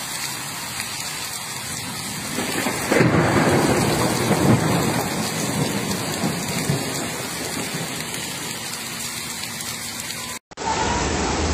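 Heavy rain pouring steadily, with a low rumble of thunder from about two and a half to five seconds in. Near the end the sound cuts off abruptly and gives way to a duller rush of rain.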